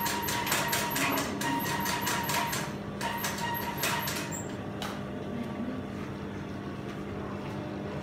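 Brother industrial lockstitch sewing machine stitching in a fast clatter of needle strokes, which stops about three seconds in; a steady low hum carries on after, with a few light clicks as the fabric is handled.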